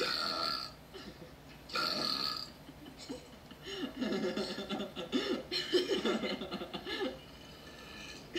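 A young woman belching: two short sounds in the first two seconds, then one long, loud belch from about three seconds in to about seven, its pitch wobbling up and down.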